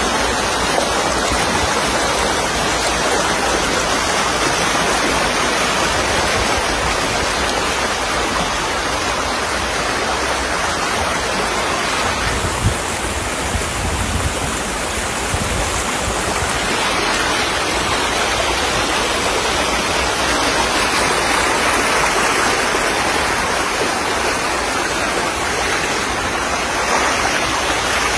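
Floodwater flowing fast down a street, a steady loud rushing of running water.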